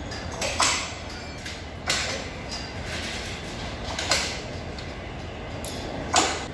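Workers' hand tools striking the railway track, sharp metallic knocks about every one to two seconds, the loudest just after the start and near the end, over steady station rumble.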